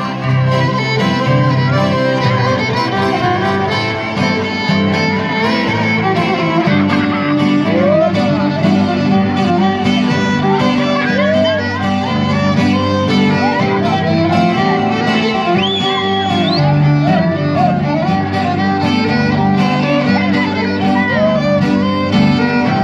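Live band playing Greek folk dance music, a violin carrying the melody over the accompaniment.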